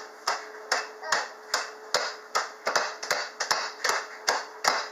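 Wooden rolling pin repeatedly striking a zip-top bag of pretzel sticks on a kitchen countertop, crushing the pretzels: quick, uneven thumps, about two to three a second.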